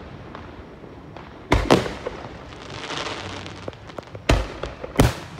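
Aerial fireworks bursting: four sharp bangs, two close together about a second and a half in and two more near the end, with a stretch of crackling in between.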